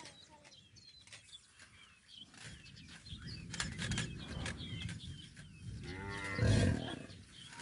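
An African buffalo gives one low, drawn-out bawl about six seconds in, the loudest sound here.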